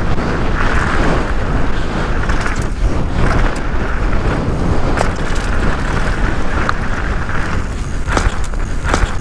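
Downhill mountain bike ridden fast down a dry dirt and gravel trail, heard from a bike-mounted action camera: a deep, steady rush of wind on the microphone mixed with tyre noise on the loose dirt and the bike rattling. A few sharp clacks from the bike near the end.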